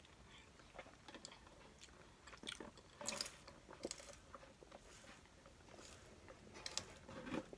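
Faint close-miked mouth sounds: chewing, then from about three seconds in a drink sipped through a straw and swallowed in gulps, a big gulp.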